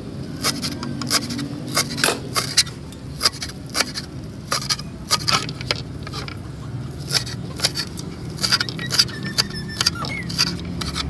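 Kitchen knife chopping fresh coriander on a wooden cutting board: sharp, irregular taps of the blade striking the board, about two a second, over a low steady hum.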